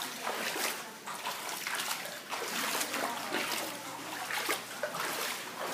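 Floodwater splashing and sloshing, with many irregular splashes over a steady rush of running water.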